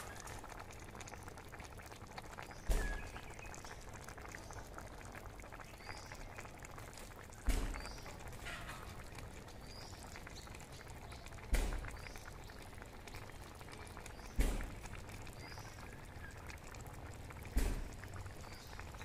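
Chicken curry boiling in a large pan over a fire: a steady bubbling hiss, broken five times by a sudden low thump that fades quickly, every three to four seconds. Faint high chirps sound now and then.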